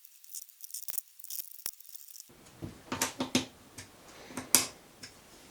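Small metal parts and tools clinking and clicking as they are handled on the mini mill, a few light taps at first and then a quick run of sharper clinks about halfway through.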